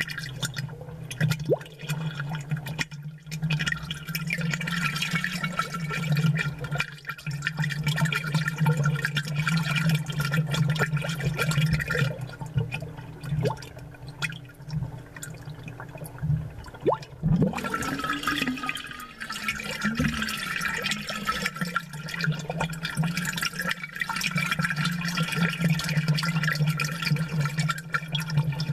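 Aquarium water bubbling and splashing, close up, a dense crackle of small bubbles over a steady low hum. About two-thirds of the way through there is a brief louder gurgle.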